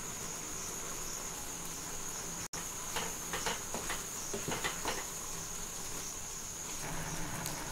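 Wooden spatula stirring thick dal in a nonstick pan: a few soft scrapes and knocks about three to five seconds in, over a steady high-pitched hiss.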